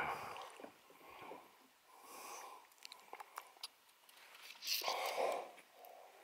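Faint breathing and sniffing close to the microphone, a few separate breaths with a stronger pair near the end, and scattered small clicks in between.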